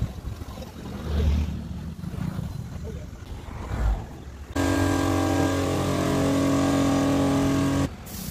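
Low workshop rumble and handling noise, then a steady motor hum that starts suddenly about halfway through and cuts off just before the end.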